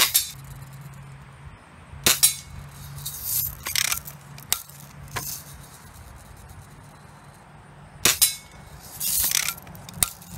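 Daisy Red Ryder lever-action spring-air BB gun being fired: sharp cracks at the start, about two seconds in and about eight seconds in, with brief rattly, hissy noises between the shots.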